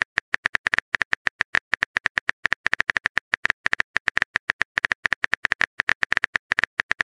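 Phone keyboard typing sound effect: a fast, uneven run of short key-tap clicks, about nine a second.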